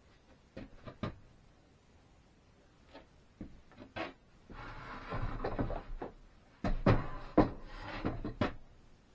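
A hand tool working on a wooden bench: a few light clicks, then scraping about halfway through, and several sharp knocks on the wood near the end.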